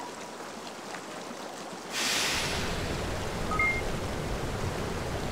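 Rushing floodwater sound effect that swells suddenly about two seconds in into a louder surge of crashing water with a deep rumble beneath. Two brief high electronic blips follow about a second and a half later.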